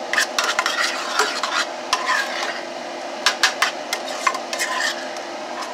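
Metal spoon stirring and scraping thick mashed potatoes in a stainless steel saucepan, with irregular clinks against the pot's sides. A range hood fan hums steadily underneath.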